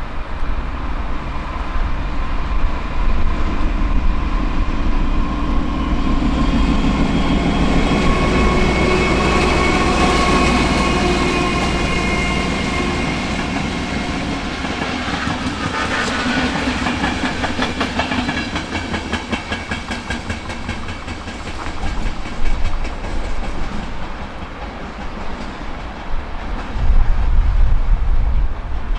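A train passing along the track with a steady whine and rumble, its wheels clicking rhythmically over the rail joints about halfway through.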